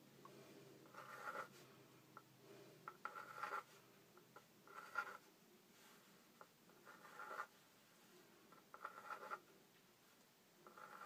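Pencil sketching small circles on paper: about six short, faint strokes, each about half a second long, coming a second or two apart.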